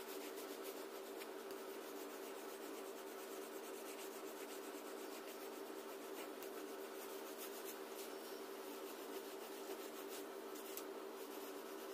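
Oil pastel rubbed back and forth across paper, a faint, continuous scratchy rubbing, over a steady low hum.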